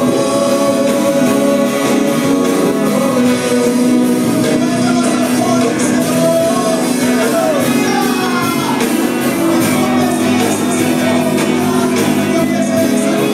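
Live gospel worship music: a band playing with voices singing.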